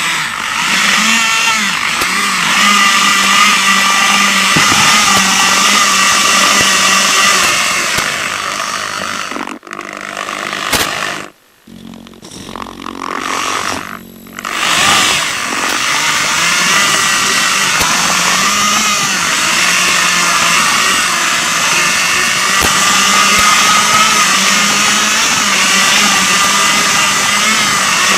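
RC rover's drive motors and gearing whining as it drives, the pitch wavering with speed. It stops about ten seconds in, goes almost quiet briefly, then starts up again a few seconds later and runs steadily.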